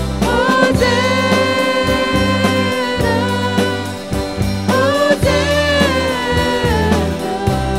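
Christian song: a singer holding long notes over a steady bass line and a regular beat.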